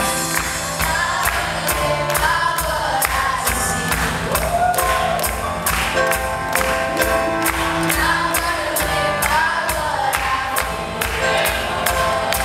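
Live worship band music: a young girl sings lead over keyboard, drums and trumpet, with a steady drum beat.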